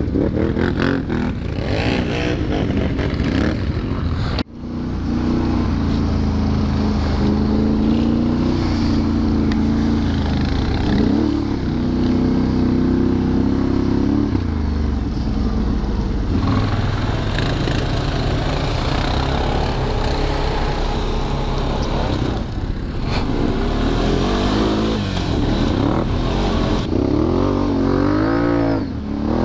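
ATV engine, the Can-Am Renegade 1000 XXC's V-twin, running and revving on the move, its pitch rising and falling with the throttle. There is a sudden break in the sound about four seconds in.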